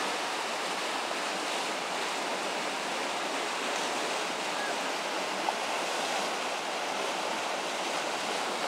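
River rapid rushing steadily, whitewater churning over a riffle.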